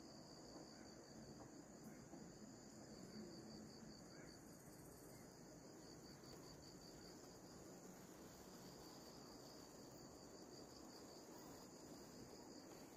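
Faint, steady chorus of forest insects: a continuous high-pitched trilling.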